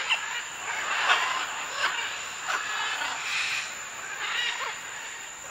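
Night-time animal calls: a string of short chirps, about one every second or a little faster, each falling in pitch, over a steady high-pitched whine.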